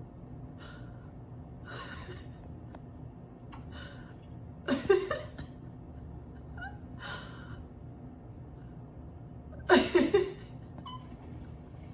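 A series of short breathy gasps and brief cries, several quiet and two loud ones about five seconds in and near the end, each loud cry falling in pitch, over a low steady hum.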